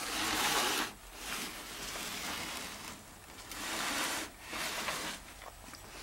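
Seat-belt webbing rustling and sliding as it is pulled and handled, in a few soft swells of noise.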